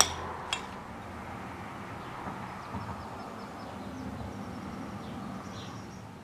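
Steady background ambience with faint bird chirps a few seconds in, fading out at the end. Two short clicks come right at the start.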